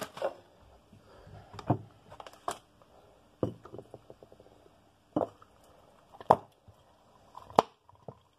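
Glass jar and bottle being handled on a countertop: a series of separate sharp knocks and clicks, about seven of them, spread a second or so apart.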